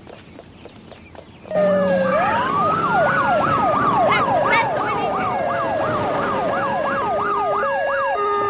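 Emergency-vehicle sirens from a police car, an ambulance and a fire-department car, cutting in suddenly after a quiet first second and a half. A fast yelping siren, sweeping up and down about twice a second, plays over a slow rising-and-falling wail. A two-tone hi-lo siren joins near the end.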